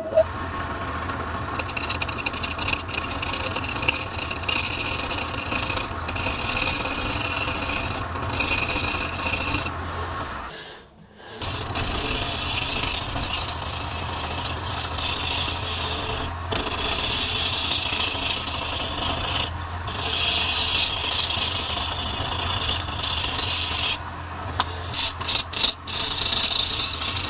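Wood lathe spinning a log with a steady low hum while a hand-held turning chisel cuts into it, a continuous rasping hiss of wood being shaved away. The cutting hiss breaks off briefly several times, and about ten seconds in all sound drops out for a moment.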